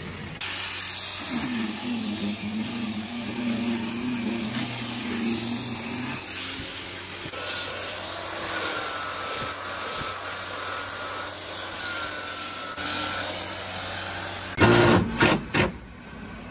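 Power sanding of hardwood. An electric disc sander runs over a tabletop with a steady hum, then a handheld belt sander works a raised-panel door with a higher whine. Near the end come three or four short, loud bursts from a cordless drill driving hinge screws.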